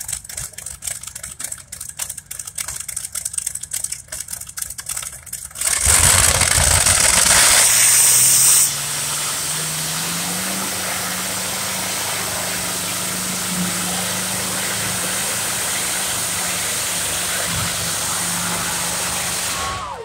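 Curtiss-Wright R-3350 18-cylinder radial aircraft engine on a pulling tractor, running with rapid irregular popping, then opening up about six seconds in with a sudden very loud blast. It then runs steadily at full power, its pitch rising over a couple of seconds and then holding.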